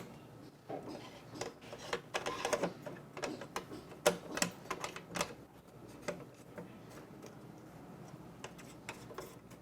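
Prying tools working at a smartphone's glued back glass: a run of irregular small clicks and short scrapes as the glass is worked loose from its adhesive.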